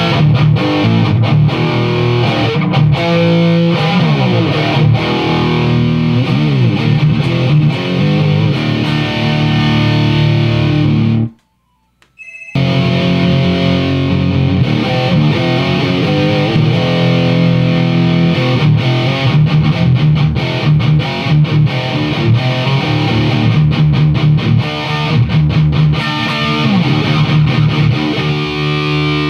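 Distorted electric guitar played through a rebuilt Crate Vintage 60 amp voiced for high gain, in the style of a Soldano/Splawn-type circuit. The playing stops abruptly for about a second near the middle, then carries on.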